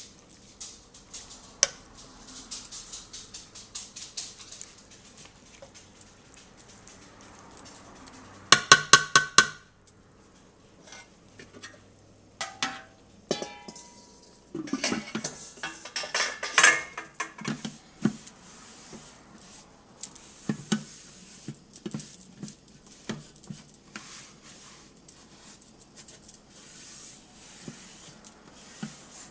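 Wooden spoon stirring and scraping steak strips, onions and mushrooms in a Ninja Cooking System pot, with small scattered clicks. About nine seconds in comes a quick run of five or six loud ringing knocks against the pot. A denser clatter of cookware follows around fifteen to seventeen seconds in, as the lid is set on.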